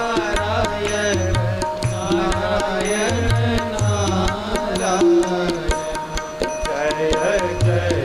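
Background Indian devotional music: a gliding melody line over drums in a steady repeating rhythm.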